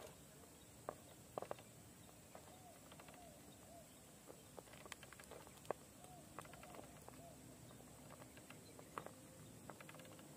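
Near silence, broken by faint scattered clicks and knocks of an RC rock crawler's tyres and chassis on rock, with a few brief, faint whines from its Hobbywing Fusion Pro 2300KV brushless motor that rise and fall in pitch as the throttle is fed in.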